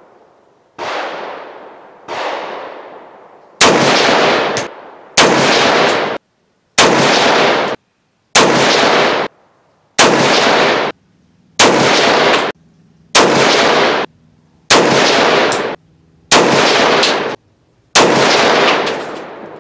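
A string of 6.5 Creedmoor rifle shots from a muzzle-braked Axelson Tactical Hurricane rifle firing Nosler 140 grain match ammunition. There are about a dozen, one roughly every 1.6 seconds, each ringing out for about a second and then cut off abruptly. The first two are quieter than the rest.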